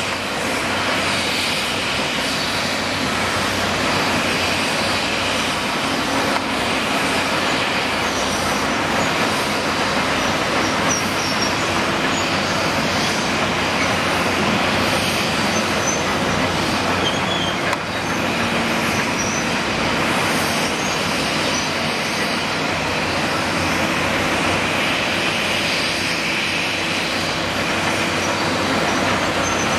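Caterpillar 385C hydraulic excavator's diesel engine running steadily while it digs, over a constant background of site and street noise.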